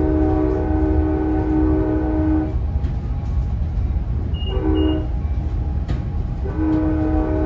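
Locomotive horn of the passing Amtrak San Joaquin train, a chord of several notes sounded as a long blast, a short one about two seconds later, and another long blast starting near the end, over the steady low rumble of the train.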